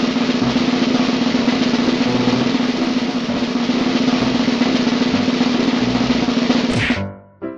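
Snare drum roll, held steadily for about seven seconds and then stopping abruptly near the end.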